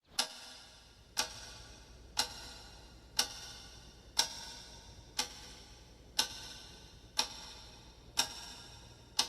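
Clock ticking sound effect: ten sharp ticks, one a second, each with a short ringing tail, over a faint low hum.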